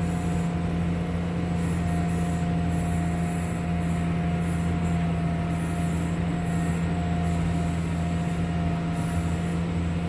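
Front-loader tractor's engine running steadily as it drives, heard from inside the cab: an even low drone with a faint steady whine above it.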